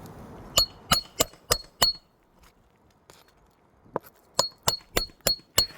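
Hammer striking the back of a roof snake, a steel shingle-removal tool worked under the shingles: metal-on-metal blows with a bright ring. Two quick runs of five strikes, about three a second, with a single lighter tap in the pause between them.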